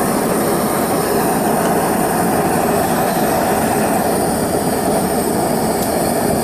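Two JT539T propane hand torches firing into a small 4-inch furnace, a steady, loud gas rushing sound. The burners are running at full, heating the furnace and mold.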